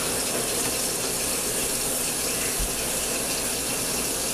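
Kitchen faucet running a steady stream of water into the sink and down through a newly installed garbage disposal, a leak test.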